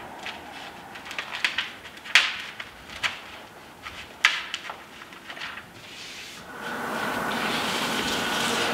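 Crackling and rustling of Tyvek housewrap and flashing tape being handled and pressed against the wall, with a string of sharp crinkles over the first five seconds. About six and a half seconds in, a louder steady rushing noise takes over.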